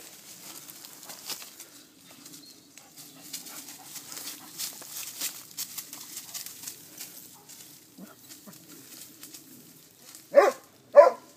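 Faint rustling and crackling of grass and dry leaves as a dog noses through undergrowth, then a dog barks twice in quick succession near the end, the barks about half a second apart.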